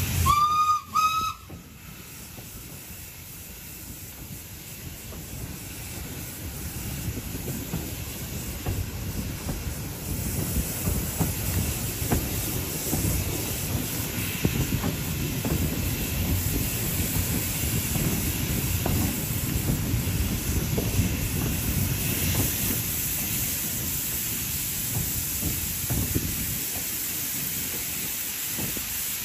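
Two short toots of a steam locomotive whistle in the first second or so. Then the steady rumble and clatter of the train running, heard from aboard a carriage, growing louder over the first ten seconds and then holding.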